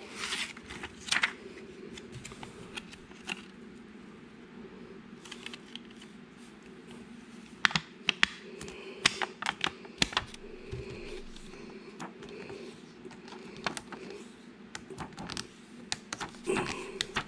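A gold-foil Goldback note being handled, bent and creased by hand: irregular crackles and sharp clicks of the stiff foil, busier in the second half.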